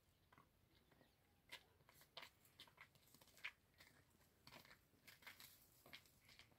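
Faint footsteps crunching on a stony dirt path as a few people walk, irregular short crunches that start about a second and a half in and come more often toward the end.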